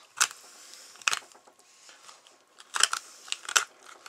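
Knife cutting and scraping cheek meat loose inside a skinned walleye's head: a handful of short, sharp crunches and clicks at irregular intervals.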